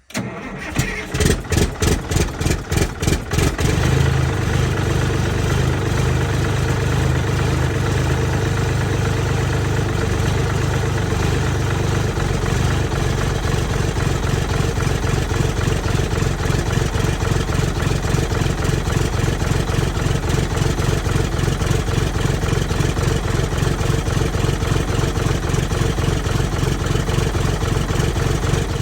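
Vintage Flxible bus engine cranked over by the starter for about four seconds, with rhythmic pulses as it turns, then catching and settling into a steady idle.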